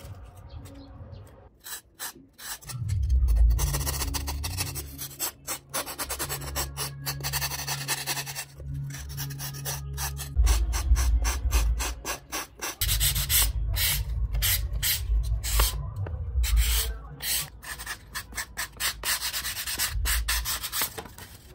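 Sandpaper rubbing back and forth over a thermocol (polystyrene foam) model fuselage in quick, scratchy strokes. It starts a couple of seconds in and pauses briefly a few times.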